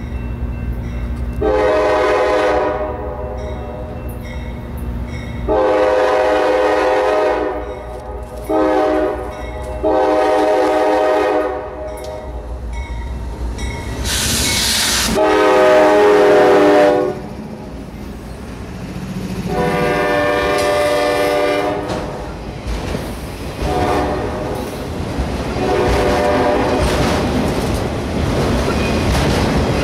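Diesel locomotive air horn, several notes at once, sounding the grade-crossing signal twice over: long, long, short, long. The loudest blast comes about halfway through as the lead locomotive passes. Near the end the autorack cars roll by with wheels clicking over the rail joints.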